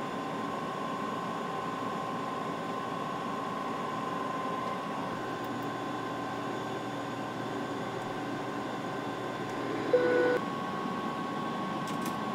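Steady airliner flight-deck noise in flight: a constant rush of airflow and avionics fans with a faint steady whine, and a short beep about ten seconds in.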